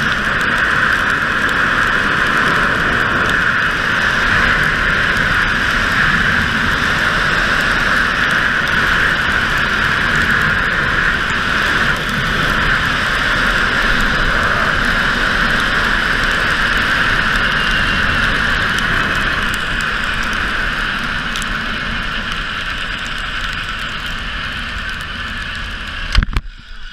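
Zip-wire trolley pulleys running fast along the steel cable: a steady high whine under rushing wind on the rider's camera. It eases gradually in the last few seconds as the rider nears the landing platform, and ends with one sudden loud thump.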